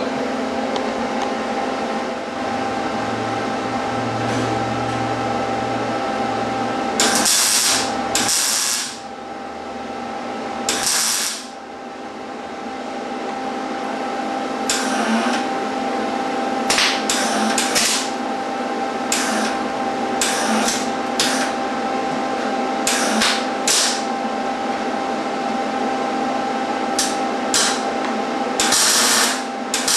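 Electric arc welder laying short welds on a steel angle-iron frame: about a dozen bursts of arc noise, each under a second, starting about a quarter of the way in and coming in quick runs near the middle and the end, over a steady shop hum.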